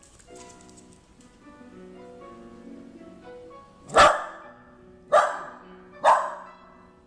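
A dog barks three times, about a second apart, over soft instrumental background music.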